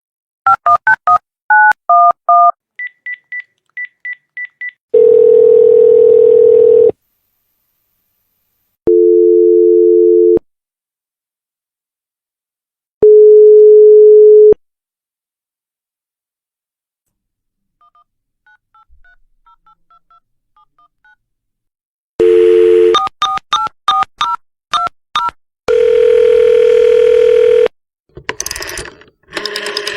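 Telephone keypad tones: quick runs of two-note touch-tone dialling beeps, a run of single higher beeps, and several steady line tones about two seconds long, each starting and stopping abruptly.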